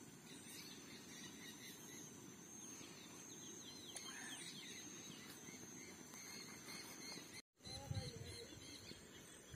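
Faint open-air countryside ambience: scattered bird chirps over a steady low rumble and a steady high-pitched tone. The sound drops out for an instant near the end, followed by a few low bumps.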